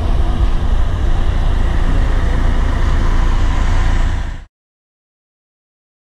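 Loud, steady rumbling noise with most of its weight in the bass, cutting off abruptly to dead silence about four and a half seconds in.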